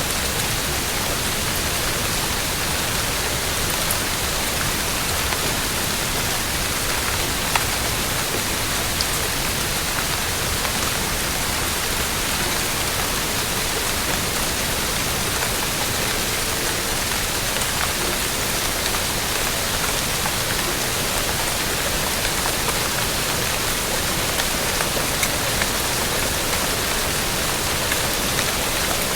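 Steady rain, an even dense hiss of falling water with a few faint sharp drop ticks.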